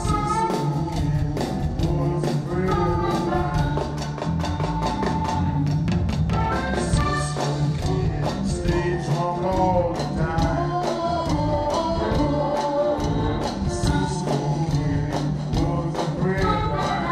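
A live funk band plays with a steady drum beat and electric guitar, while a harmonica, played into a hand-held microphone, carries a wavering melody over them.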